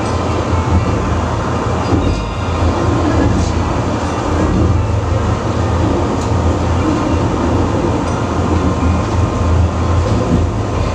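Penang Hill funicular car running downhill, a steady low rumble of the car and its wheels on the track heard from inside the cabin.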